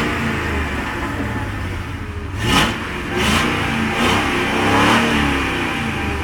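2001 Ford Crown Victoria Police Interceptor's 4.6-litre V8 revved in several blips, the pitch climbing and falling back each time, through catalytic converters that have been hollowed out and worn, rattling stock mufflers, giving a harsh exhaust note.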